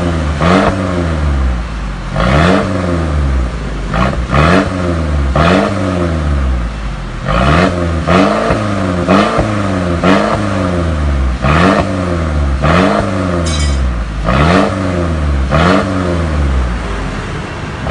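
Mercedes GLC300's turbocharged four-cylinder engine being revved in repeated short blips through an aftermarket valved exhaust. It climbs and drops in pitch more than a dozen times, with a raspy crackle at the top of each rev.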